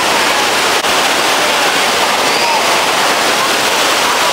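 Waterfall water rushing steadily over rock cascades, a loud even rush, with a brief drop in level about a second in.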